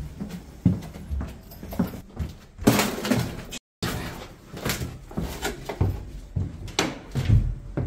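Footsteps thudding down a narrow staircase, a step roughly every half second, with a louder scuff about three seconds in. The sound cuts out for a moment just before the middle.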